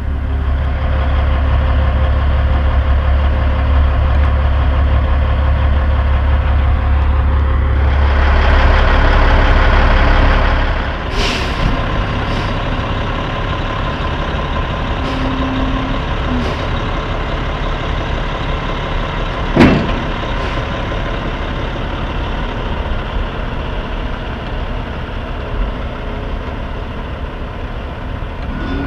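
Heavy semi-truck diesel engines running: a deep, steady engine drone grows louder, then drops away about 11 seconds in, leaving a lighter idle. Over the idle come a few short hisses or clicks and one loud sharp bang about 20 seconds in.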